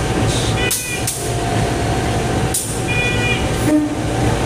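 Diesel locomotive running steadily as it is coupled onto a passenger train set, with a few short sharp knocks over the engine noise.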